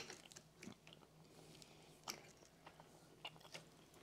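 Near silence with faint chewing and small mouth clicks from someone eating syrup-soaked pancakes, a few soft ticks spread through it over a low steady hum.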